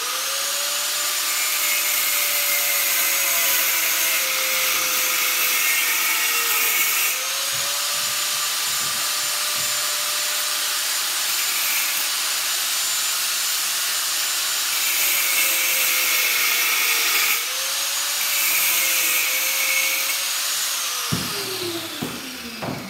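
Corded angle grinder running and cutting, a high motor whine over a harsh grinding noise. Its pitch sags under load twice, then picks back up, and near the end it is switched off and winds down with a falling whine.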